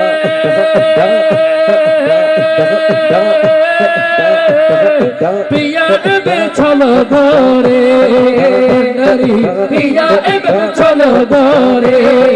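Live Maijbhandari devotional song: male voices singing over a steady drum rhythm, with long held notes for the first few seconds and a moving sung melody from about six seconds in.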